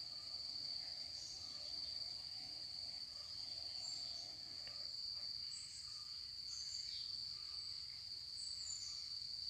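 A steady, high-pitched insect drone that holds one pitch throughout, with a few faint short chirps higher up.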